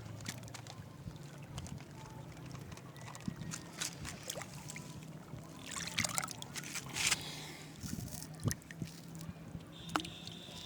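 Nile water lapping and splashing in the shallows, with scattered small splashes and two louder ones about six and seven seconds in, over a steady low hum.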